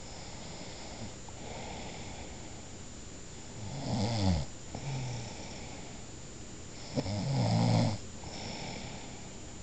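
Snoring in a slow breathing cycle. Two loud snores come about four and seven seconds in, each lasting about a second, with softer breathing sounds between.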